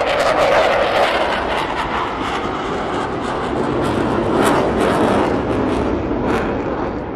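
CF-18 Hornet's twin General Electric F404 turbofans in a loud, steady jet roar with a ragged crackle, easing off slightly near the end.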